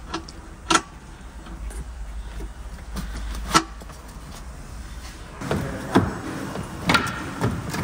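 A few sharp clicks and knocks from hands and tools working at a van seat's floor mounting. About five seconds in, outdoor background noise takes over, with more knocks as a cabinet is fitted into the back of the van.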